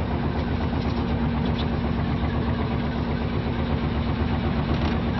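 Fishing boat's engine running steadily: a droning hum with a constant tone and a fast low throb that neither rises nor falls.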